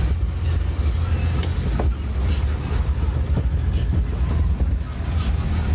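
Logging truck's diesel engine droning low and steady under way, heard from inside the cab, with road rumble and a few light knocks from the rough wet forest road.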